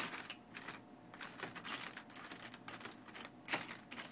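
Small steel parts clinking and rattling against one another: irregular metallic clicks and chinks, a few ringing briefly at a high pitch.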